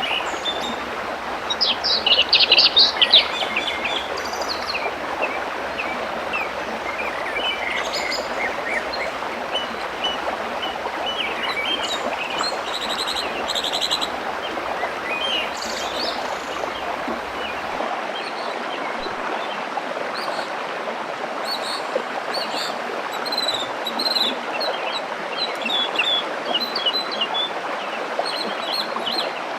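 Waterfall running with a steady rush, and songbirds chirping over it throughout, with a loud flurry of chirps about two seconds in.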